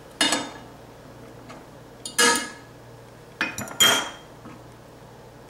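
A utensil tapping and scraping against a small glass cup to get the last of the beaten egg yolk out, four sharp clinks that ring briefly.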